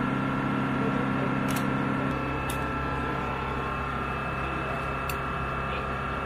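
Steady engine drone, a constant low hum with several held tones, one of which drops away about two seconds in. A few faint clicks sound over it.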